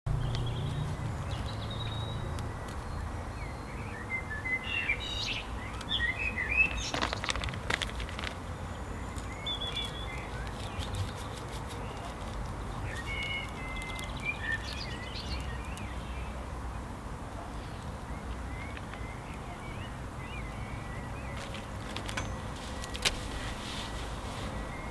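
Birds chirping in short scattered bursts over a low steady rumble, with a few sharp clicks.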